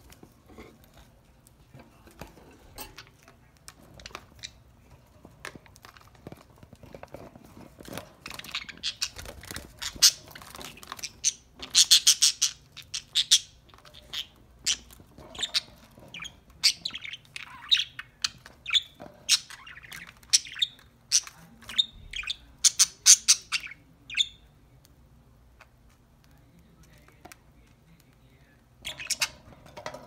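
Pet budgerigars chirping and squawking in quick, high, short calls. After a few seconds of scattered faint clicks the chirping builds into a busy chatter through the middle, then dies away, with one brief burst near the end.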